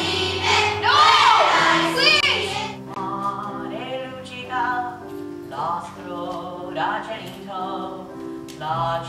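A song from a children's stage musical: young voices singing over held instrumental accompaniment notes. It is loud, with strong vibrato, for the first couple of seconds, then goes softer from about three seconds in.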